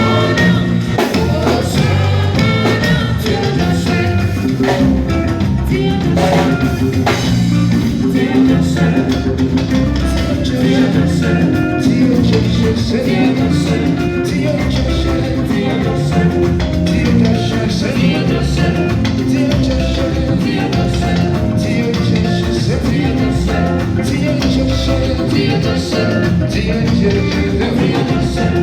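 A live band playing a song with drum kit and singing.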